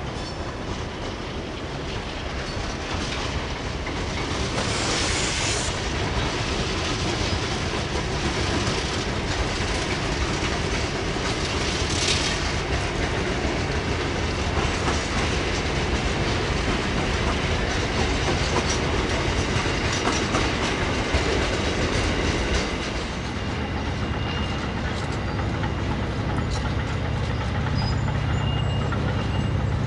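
Freight train passing: CBH-class diesel locomotives go by, followed by a long string of grain hopper wagons rolling past with the clickety-clack of wheels over rail joints. A faint high wheel squeal comes in near the end as the wagons round the curve.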